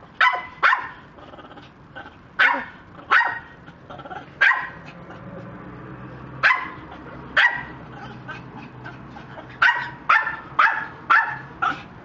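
Dog-like barking: about a dozen short, sharp barks at uneven gaps, some in pairs and several in quick succession near the end, over a faint steady hum.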